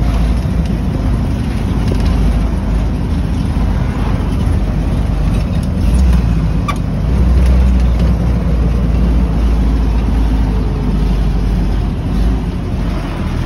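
Willys Jeep engine running under way, with road and wind noise heard from the driver's seat as a steady low rumble that swells briefly about seven seconds in.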